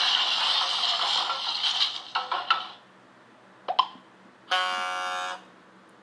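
Dubbed-in cartoon comedy sound effects: a noisy stretch with a few knocks, then two quick pops with a short pitch slide in the middle, and about a second of a flat buzzer tone near the end.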